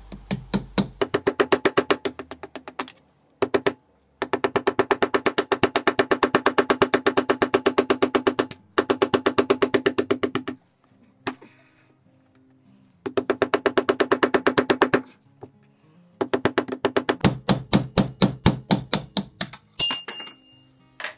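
A power tool hammering on metal in bursts of rapid, evenly spaced ringing blows. It stops and starts several times, with short silent gaps between bursts, and a brief high whistle dies away near the end.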